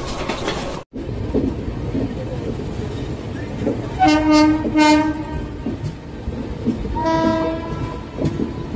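Indian Railways electric locomotive horn: two short blasts about four seconds in and one longer blast about three seconds later, over the rumble and wheel clicks of a moving train. Near the start the sound drops out abruptly for a moment.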